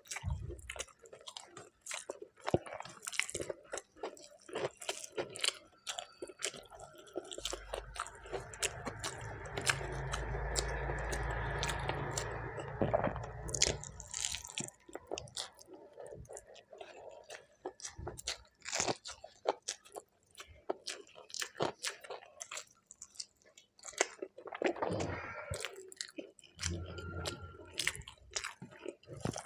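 A person chewing and biting mouthfuls of food close to the microphone, with wet clicks and crunching. For a few seconds near the middle a steadier rushing noise with a low rumble runs under the chewing.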